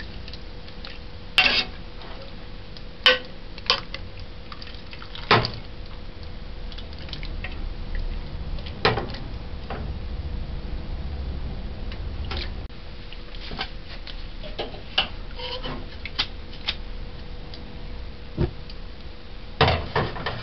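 Metal ladle stirring stew in a metal pressure cooker pot, knocking and scraping against its side with scattered sharp clinks a second or several apart.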